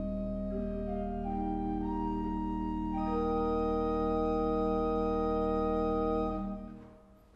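Church organ playing slow, sustained chords over a held low bass note, the chord filling out about three seconds in. The last chord is released about six seconds in and dies away in the room's reverberation.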